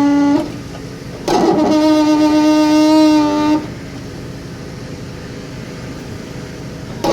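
Lippert leveling jacks creaking as they slide, a steady pitched squeal in spells: briefly at the start, for about two seconds from just after one second in, and again at the very end. The noise comes from the sliding jack legs' dry rubber O-rings and seals, which need a little lube.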